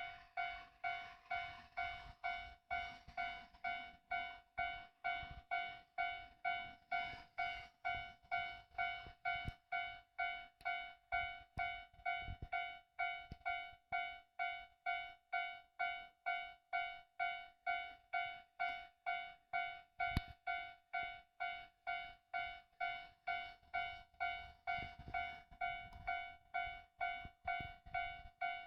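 Japanese railway level-crossing warning bell ringing: a single bright tone struck over and over, roughly one and a half to two strikes a second, each strike dying away before the next. It means the crossing is active, with a train approaching or passing.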